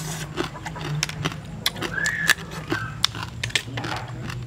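Close-up eating sounds: sucking and smacking on pieces of cooked crab, with many short clicks and cracks of shell being pulled apart. A steady low hum runs underneath.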